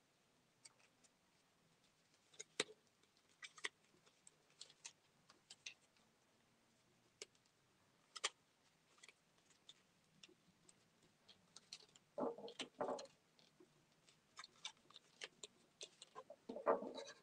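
Faint handling of a construction-paper poppy: scattered small clicks and crinkles as the paper petals are folded and pressed onto a metal brad and a straw, with two louder bursts of paper rustling, one about twelve seconds in and one just before the end.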